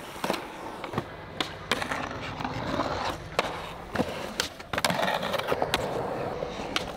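Skateboard rolling on concrete: the steady rumble of the wheels, broken by several sharp clacks of the tail popping and the board landing during flip tricks.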